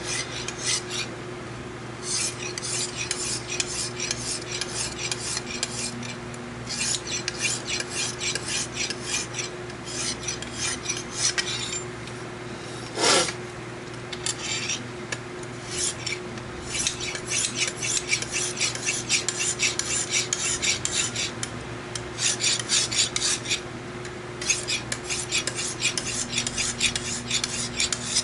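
Lansky sharpening kit's synthetic hone rasping along a clamped knife edge in runs of quick back-and-forth strokes with short pauses, touching up the edge to clear the remaining burr.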